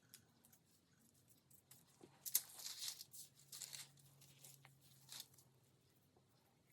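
Faint rustling and tearing of thin gold foil sheets being handled, in a few short bursts, the clearest about two to three seconds in and another just after five seconds.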